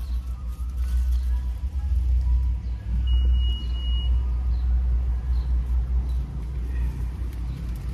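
Low steady rumble inside a parked SUV with its engine idling. About three seconds in, a single high beep lasts about a second, and the rear liftgate closes.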